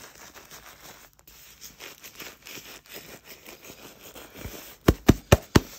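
Plastic-backed adult diaper rustling and scratching as it is handled and its grip tabs are pressed into place, then four sharp knocks in quick succession near the end.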